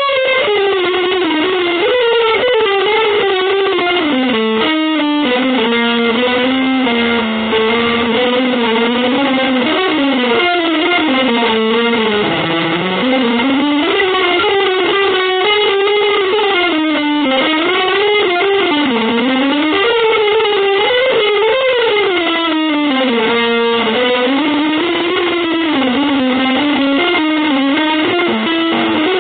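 Electric guitar with distortion and effects playing a continuous, wandering single-note improvised line that slides between notes, in a free-jazz, avant-garde style.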